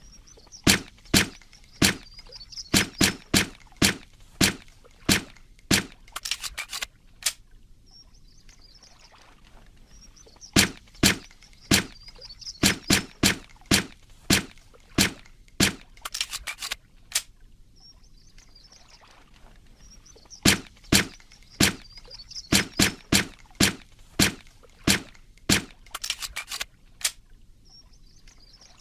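Suppressed Walther PPK pistol firing: runs of single sharp shots in quick succession, each run ending in a fast rattle of clicks, repeated three times about ten seconds apart.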